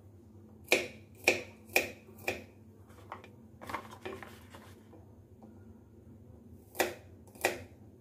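Kitchen knife chopping peeled garlic cloves against a chopping board: sharp single strikes about two a second in short runs, four in a row, a few lighter taps, then two more near the end.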